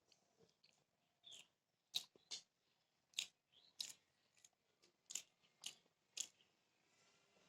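A person chewing beef biryani, with a string of faint, sharp wet mouth clicks and smacks at irregular intervals.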